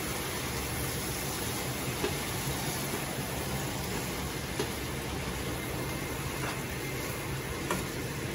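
Chicken pieces frying with spices in oil in a frying pan, a steady sizzle, while a spatula stirs them and lightly knocks against the pan a few times.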